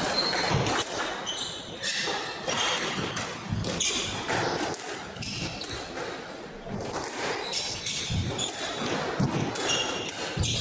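Squash rally: the ball smacking off rackets and the court walls in quick irregular strikes, with rubber shoe soles squeaking on the wooden court floor.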